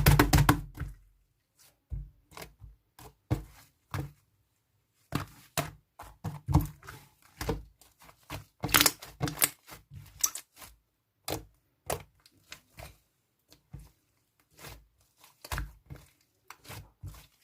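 Slime being squished, poked and pulled by hand, with irregular sticky clicks, pops and short crackling bursts, busiest at the very start and around the middle.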